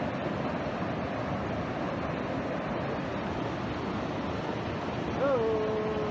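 Steady rush of water tumbling over the small cascades of a waterfall. Near the end a person's voice starts one long held note.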